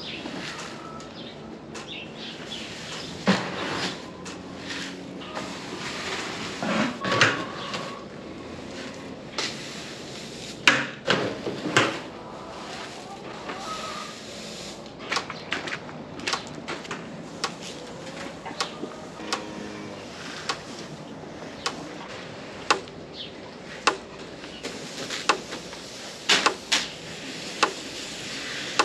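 Grain being scooped from a wheelbarrow with a plastic bucket and poured into metal feed troughs: a scatter of knocks and clanks with short rushes of pouring grain.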